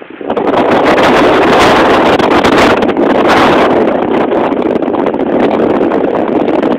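Heavy wind buffeting on the phone's microphone, jumping suddenly to a loud, ragged rumble about a third of a second in and holding there.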